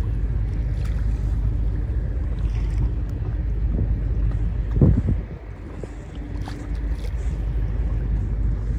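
Wind buffeting the microphone over water sounds from a kayak out on the harbour, with scattered small splashes. The rumble swells loudest just under five seconds in, then eases for about a second before picking up again.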